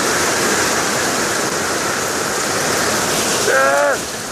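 Heavy rain pouring down with rushing storm runoff, a steady hiss. Near the end, a brief pitched sound, about half a second long and falling at its end, rises over it.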